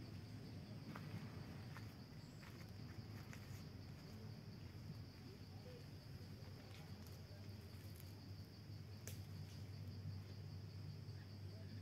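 Faint, steady high-pitched insect drone over a low outdoor rumble, with a few light clicks scattered through.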